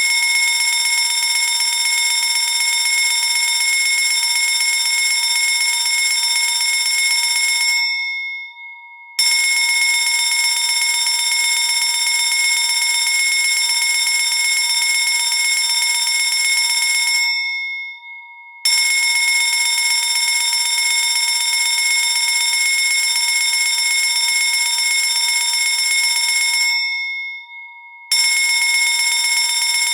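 Fire alarm ringing loudly in bursts of about eight seconds, each followed by a short break of about a second and a half in which the ring dies away.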